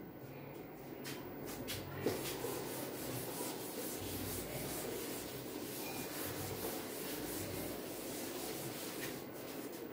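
Wooden-backed duster being rubbed across a chalkboard to wipe off chalk writing: a steady scrubbing rub for several seconds, with a light knock about two seconds in.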